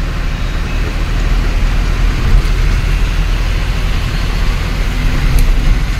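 Ashok Leyland 1214 truck's diesel engine running while driving, heard inside the cab along with road noise: a steady low rumble.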